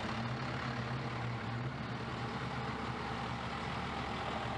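A vehicle engine idling steadily, with an even low hum.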